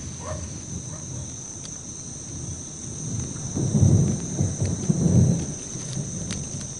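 Distant thunder rumbling low, swelling twice past the middle, over a steady high-pitched drone of insects.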